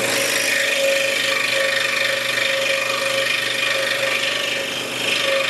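Scroll saw running with a Flying Dutchman number 7 reverse-tooth blade, cutting slowly through cherry hardwood: a steady motor hum with the blade rasping through the wood. There is a brief dip in loudness near the end.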